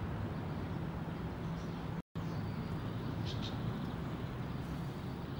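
Steady low hum and hiss of outdoor background noise, cutting out for an instant about two seconds in, with a couple of faint high chirps a little past the middle.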